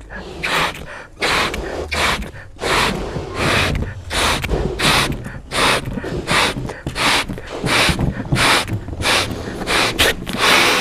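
Two people blowing up latex balloons by mouth: a quick run of hard, gasping breaths, more than one a second, as air is drawn in and blown into the balloons.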